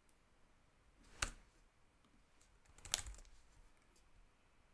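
Two sharp clicks on a computer, one about a second in and a quick cluster of clicks about three seconds in, over quiet room tone.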